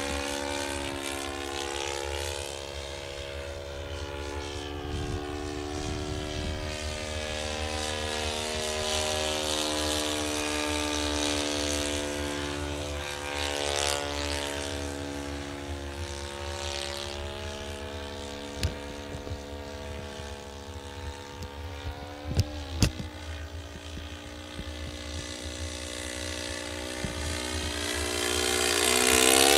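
OS FS-26 Surpass single-cylinder four-stroke glow engine of a radio-controlled Fokker Dr.1 triplane running in flight, its pitch drifting up and down as the model manoeuvres. A few sharp clicks sound in the middle, and near the end the engine grows louder and its pitch drops as the plane passes close by.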